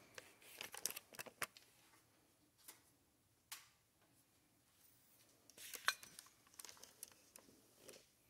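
Faint, scattered clicks and light metallic clinks of metal parts and tools being handled on a workbench, loudest about six seconds in.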